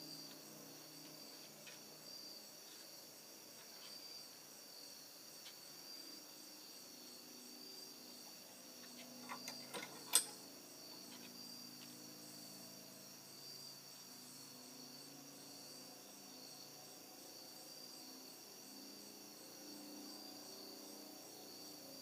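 Insects calling in a faint, steady high trill. A few sharp clicks come near the middle, the last and loudest about ten seconds in.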